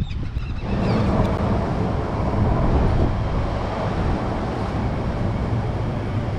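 Wind buffeting the microphone outdoors by the water, a steady rushing noise that swells suddenly about half a second in.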